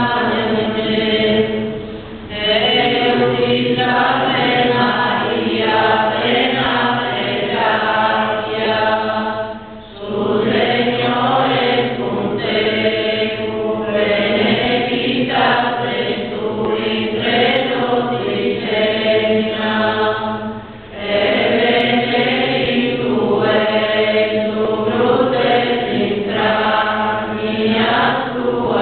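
Church congregation singing a hymn together, with short pauses between phrases about 2, 10 and 21 seconds in.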